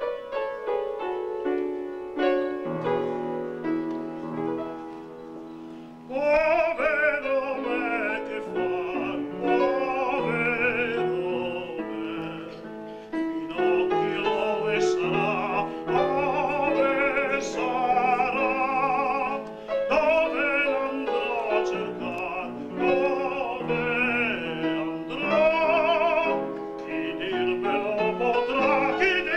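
Live ensemble music: about six seconds of instrumental introduction with held notes, then operatic singing with strong vibrato over the accompaniment.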